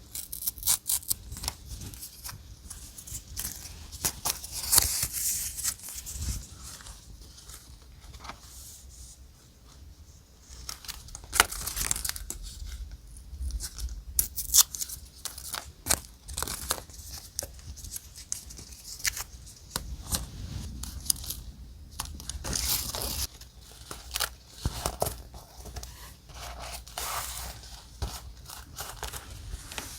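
Paper die-cuts being handled close to the microphone for journal decorating: a continuous run of papery rustling, crinkling and tearing with small sharp taps and snips.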